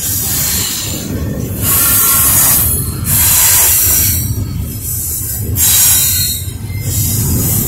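Double-stack intermodal freight train rolling past: a steady low rumble of wheels on rail, with swells of high hiss rising and falling about four times.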